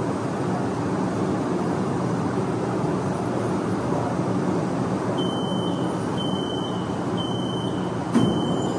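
Metro train running with a steady rumble. From about five seconds in, a high electronic warning beep repeats about once a second, and a single thump sounds near the end.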